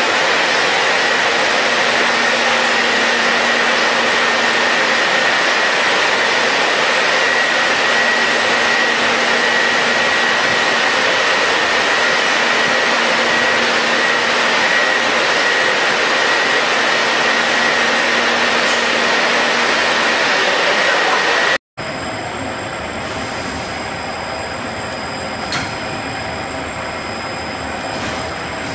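Biscuit production line machinery running: a loud, steady mechanical whir with a constant high whine from the dough-sheet conveyors and forming rollers. About three-quarters of the way through it cuts off abruptly and resumes quieter with a different whine, with a single click soon after.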